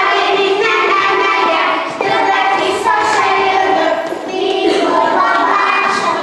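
A group of young children singing a song together, holding notes in a steady tune.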